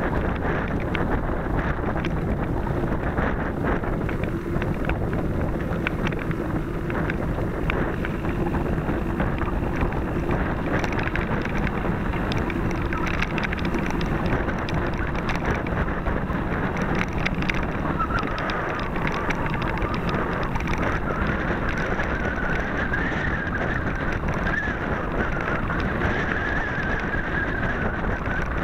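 Wind buffeting the microphone of a camera on a mountain bike, over the steady tyre noise and small rattles and knocks of the bike riding a rough dirt singletrack.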